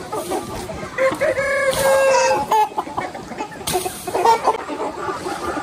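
A flock of chickens clucking, with a rooster crowing once, a long held call, starting about a second in.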